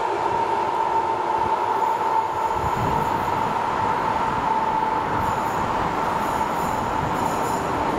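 Freight trains passing on electrified double track: container wagons roll by with a steady high wheel squeal. From about three seconds in, the heavier rumble of an ET22 electric locomotive hauling tank wagons on the other track is added, and the squeal fades a little later.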